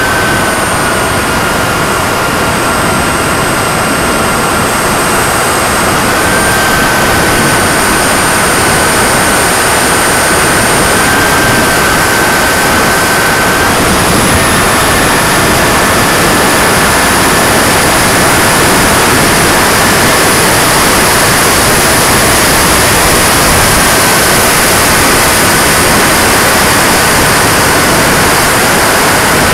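RC Shockwave jet's turbine engine heard from a camera on the airframe in flight. A loud, steady rush of airflow carries a thin high whine that steps up and down in pitch a few times.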